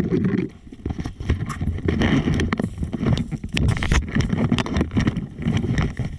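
Dirt bike engine running unevenly, the throttle opening and closing, with many short knocks and clatter from the bike bouncing over rough single-track trail.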